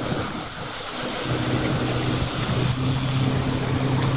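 A motor running with a steady low hum that sets in about a second in, over wind noise on the microphone.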